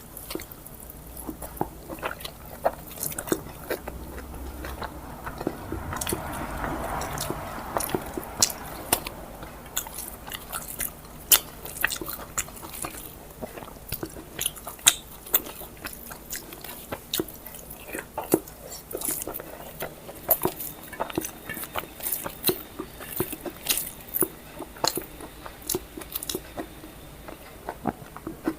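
Close-miked mukbang eating: a person chewing mouthfuls of rice and fried vegetables, with many irregular wet smacks and clicks of the mouth.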